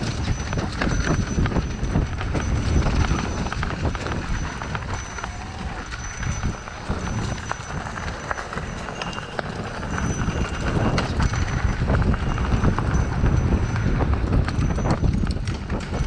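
Mountain bike descending a dirt trail: tyres rolling over rocks and roots with a constant rapid clatter and rattle of the bike, over a heavy low rumble of wind on the microphone.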